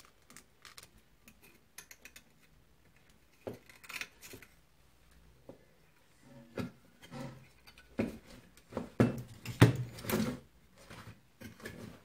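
Scattered clicks, knocks and rubbing as hands work the transformer and wiring out of a battery charger's metal case. The loudest knocks come in a cluster about eight to ten seconds in.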